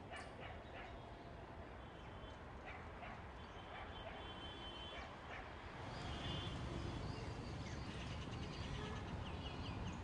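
Outdoor ambience: short high animal calls and chirps repeating, over a low background rumble that grows louder about six seconds in, like traffic.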